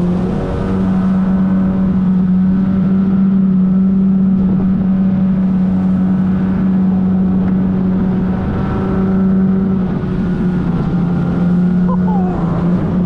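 Outboard motor of a small aluminium boat running at a steady speed, with one even tone, easing off and dropping in pitch right at the end.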